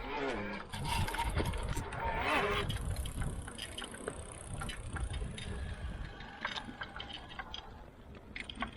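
Bosch Performance Line Speed e-bike mid-drive motor running with a loud noise: irregular clicking and knocking over a low rumble, with a thin high whine. It is the sign of something broken inside the motor.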